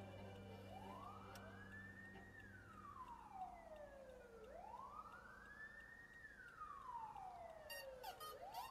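Faint police siren wailing, its pitch sliding slowly down and back up about once every four seconds.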